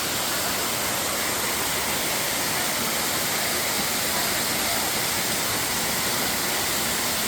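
Waterfall running: a steady, even hiss of water pouring down a stepped rock cascade.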